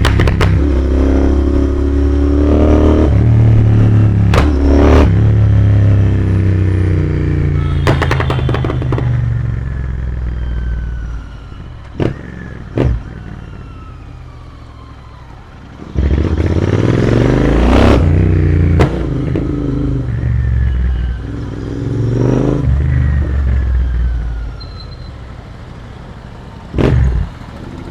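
Royal Enfield Interceptor 650 parallel-twin engine pulling and revving under throttle while riding. It eases off about eleven seconds in, with two sharp exhaust pops on the overrun, then pulls again; another pop comes near the end. The pops come from an exhaust and tune set up for pops and bangs.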